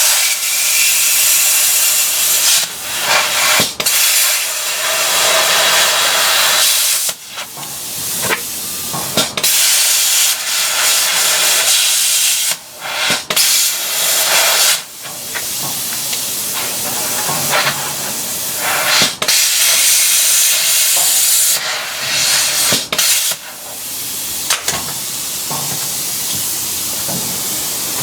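Plasma cutter cutting metal: a loud, steady hiss of the air-fed arc, stopping briefly and starting again several times as the torch is lifted and re-triggered.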